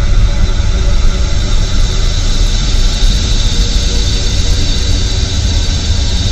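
Experimental ambient noise music: a loud, steady, dense wash of deep rumble and hiss, with a brighter high hiss swelling from about halfway through.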